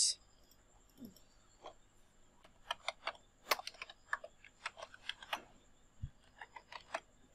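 Computer keyboard typing: soft, separate key clicks in short irregular runs, sparse at first and busier from a couple of seconds in.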